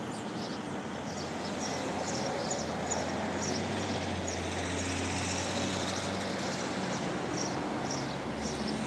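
Road traffic: cars and a van driving through a junction below, a steady hum of engines and tyres that swells through the middle. Short high chirps, like small birds, repeat about twice a second over it.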